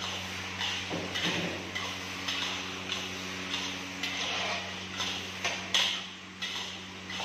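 Long metal spatula scraping and stirring paneer bhurji in a black kadhai, about two strokes a second, over a steady low hum.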